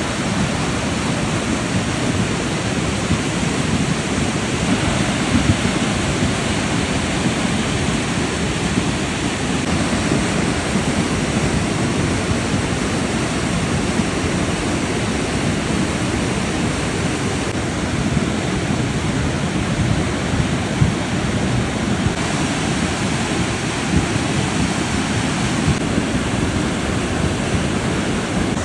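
Floodwater rushing in a river in spate, a steady loud churning noise with no letup.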